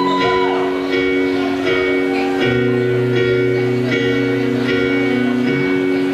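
Live band playing the opening of a slow song: sustained chords held for a few seconds each, changing about two and a half seconds in and again near the end.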